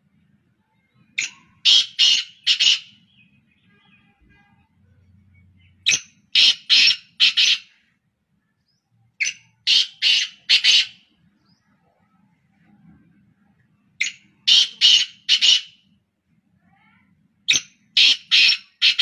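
Black francolins calling: five phrases, one about every four seconds, each a quick run of four or five loud notes.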